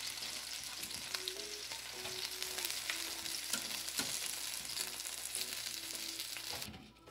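Hot chicken wings sizzling and crackling in a pulled-out air fryer basket halfway through cooking at 400 degrees, as they are turned over with metal tongs, with a few light clicks of the tongs. The sizzle cuts off near the end.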